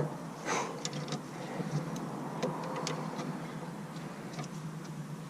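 Scattered, irregular light metallic clicks and taps from hand tools and parts, as a new brake caliper is fitted and its bolts started, with a sharper click at the very start.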